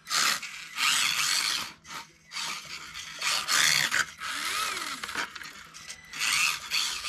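Kyosho Mini-Z RWD radio-controlled car's small electric motor and gears whining in about five short bursts of throttle, pitch rising and falling with speed, its tires scrubbing and sliding on bare concrete because they have gone slick and grip poorly.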